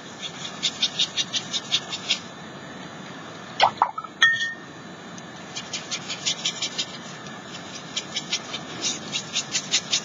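Watercolor crayon scribbled back and forth on paper: a quick rhythmic scratching of about five strokes a second, in several spells. A short squeak with a rising pitch about four seconds in.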